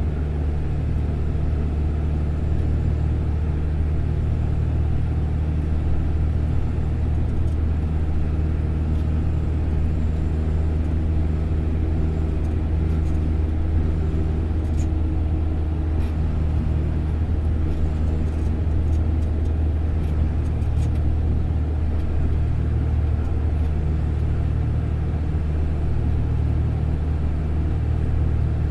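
Steady low drone of a bus in motion heard from inside its cabin: engine and tyre noise on a multi-lane highway.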